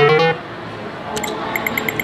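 Video poker machine's sounds: a short run of rising electronic tones as a winning hand pays, then about a second later a click and five quick beeps as a new hand of cards is dealt.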